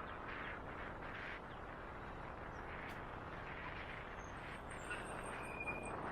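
Wind noise rushing over the camera microphone on a moving electric bike, an even steady hiss. A few faint, thin high squeaks or chirps come through in the second half.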